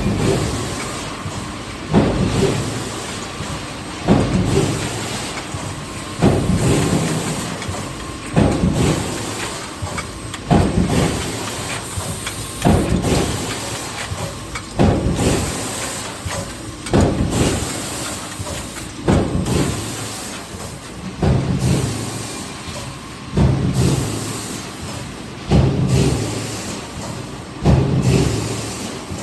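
Hydromec HF4000 forging press cycling steadily, about one stroke every two seconds. Each stroke starts sharply and dies away into a hiss before the next.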